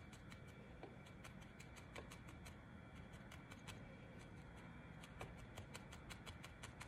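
Faint, rapid ticking of a barbed felting needle stabbing repeatedly into wool over a foam pad, several pokes a second.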